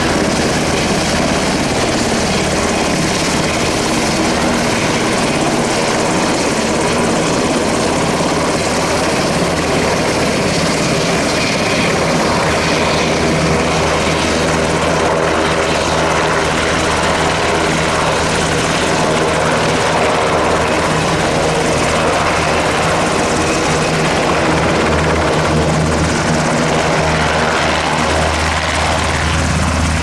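Sikorsky VH-60N WhiteHawk helicopter running loud and steady, a constant mix of rotor and turbine-engine sound.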